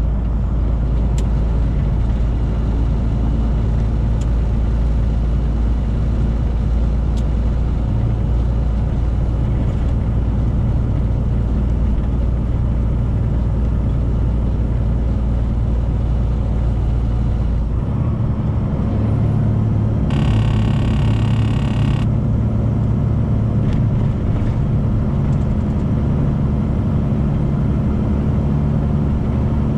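Steady engine and road drone of a 2018 Freightliner semi truck running down the highway. The low drone changes pitch a little past halfway, and a short buzzy sound lasts about two seconds soon after.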